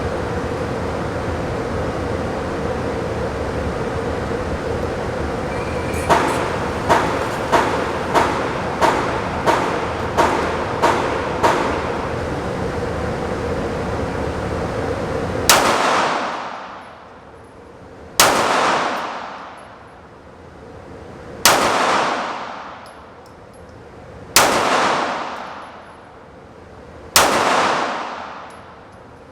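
9mm Sig Sauer P365XL pistol being fired at the range: first a quick string of about ten shots over a steady ventilation-like hum, then five slow, evenly spaced single shots about three seconds apart, each ringing out in a long echo.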